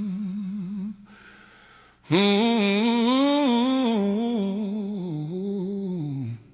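A single voice humming a slow wordless melody with vibrato, in two phrases: the first dies away about a second in, and after a short pause a longer, stepwise phrase follows that fades near the end.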